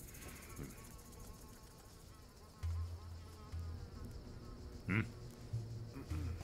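Faint buzzing of flies, with a low rumble twice and a short, louder sound about five seconds in.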